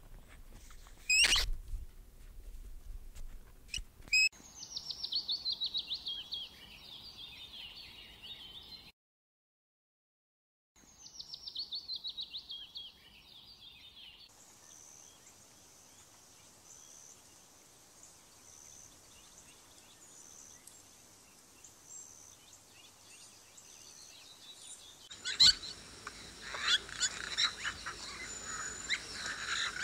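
Rapid trains of high chirping animal calls, broken by a short gap, then a faint steady high hum, then busy bird chirping near the end.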